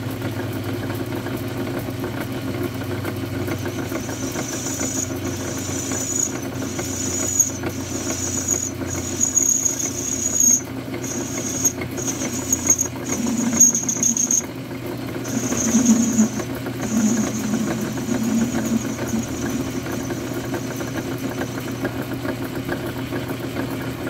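Metal lathe running steadily while its tool bit chamfers the outer edge of a spinning metal cap. The cut gives a high-pitched whine that starts about four seconds in, breaks off and resumes many times as the tool is fed in and backed off, and stops a couple of seconds before the end.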